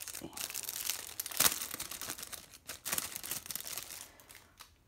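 Plastic packaging crinkling and rustling as it is handled, with irregular crackles and a sharper crackle about a second and a half in, dying down near the end.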